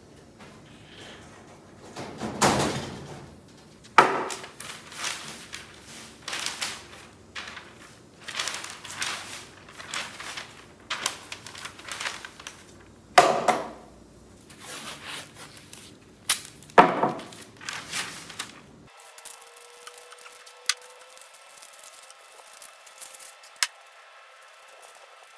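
Masking paper being spread and taped over a wooden workbench: irregular rustling and crackling of the paper, with several sharper, louder crackles. About three-quarters of the way through it drops to faint, with a couple of light clicks.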